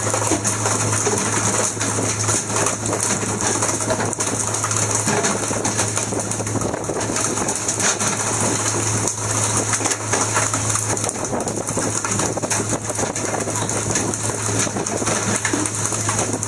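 Fishing boat's engine running steadily: a constant low hum under an even hiss.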